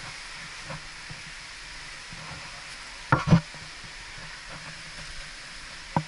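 Steady hiss of a waterfall rushing, with two quick loud bumps close together about three seconds in.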